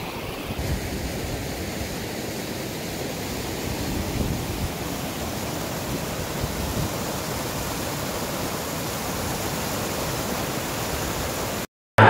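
Hot-spring outflow water rushing and churning over rocks, a steady noisy rush of tumbling water. It breaks off suddenly near the end.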